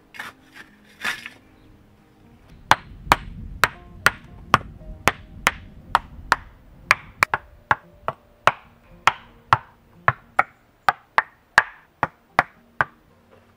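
A shovel scraping through dry soil at the start, then a long run of sharp stone-on-stone knocks, about two a second, as flat stones are knocked into place in a stone floor.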